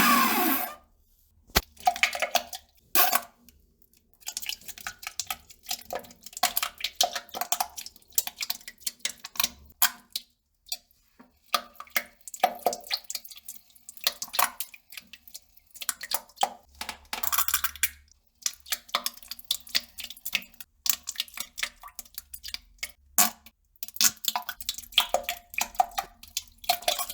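Defecation sounds: a long, dense run of short wet clicks, crackles and drips, with several louder bursts scattered through it.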